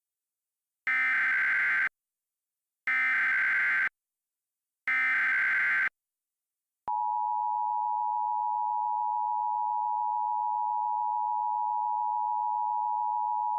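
Emergency Alert System opening: three one-second bursts of SAME digital header data, a second apart, then, about seven seconds in, the steady two-tone EAS attention signal (853 and 960 Hz) begins. This is the sequence that marks the start of an emergency alert broadcast.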